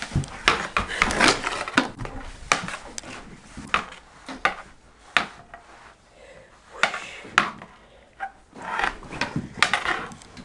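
Mini hockey sticks clacking and a small ball knocking on a hardwood floor in a knee hockey game: irregular sharp knocks with scuffing between them, busiest at the start and again near the end, with a short lull in the middle.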